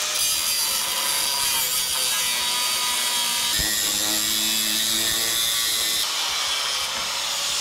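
Corded Makita angle grinder with a thin cut-off wheel slicing through the end of a chrome truck bumper: a loud, steady screech of the abrasive disc on metal, with a single knock a little past halfway and a change in the grinding tone about six seconds in as the cut goes on.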